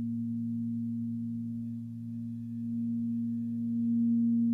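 Crystal singing bowls ringing with a few steady, sustained pure tones, swelling louder near the end as a bowl is played again.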